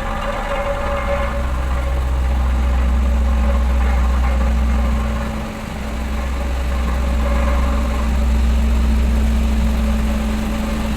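Dynapac road roller's diesel engine running steadily during vibratory soil compaction, with a strong low drone that dips for a moment about halfway through.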